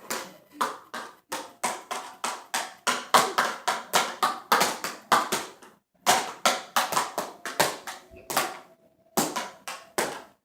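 Toy weapons clashing and striking in a mock fight: a fast, irregular run of sharp knocks and smacks, about three or four a second, with a brief pause about six seconds in.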